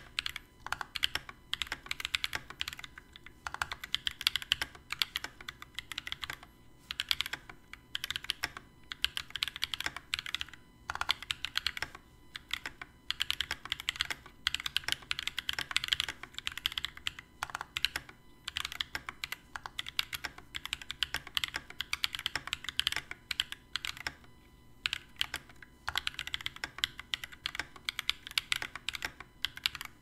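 Continuous fast typing on a Vortex Pok3r 60% mechanical keyboard with lubed Holy Panda tactile switches, a stainless steel plate and PBT keycaps, with a few short pauses between bursts. A faint low electrical buzz runs underneath, which the owner puts down to a fault in his Blue Yeti microphone.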